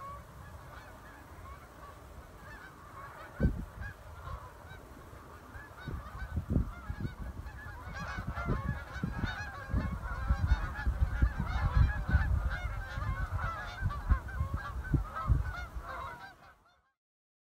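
A large flock of geese honking, many overlapping calls that build up and grow louder, then fade out near the end. A low rumble with scattered thumps runs underneath.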